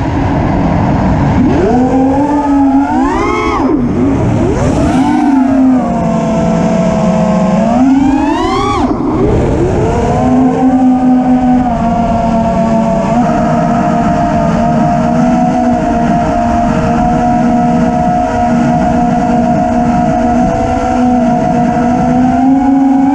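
FPV racing quadcopter's brushless motors whining, heard through the onboard camera. The pitch sweeps up and down several times with throttle punches over the first nine seconds or so, then holds a nearly steady whine, with small wavers, for the rest.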